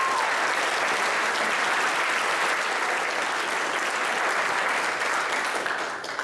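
Audience applauding at the end of a talk, a steady clapping that dies away right at the end.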